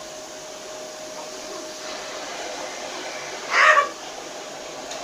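A green-winged macaw gives one short, loud call about three and a half seconds in, over a steady whirring background.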